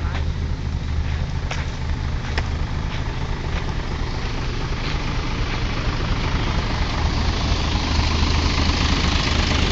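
A truck's engine idling steadily, growing louder in the second half. A couple of light knocks come in the first few seconds.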